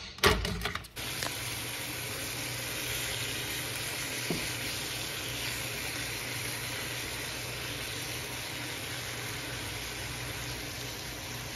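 Seasoned pork chops sizzling steadily in oil in a frying pan, after a brief clatter in the first second.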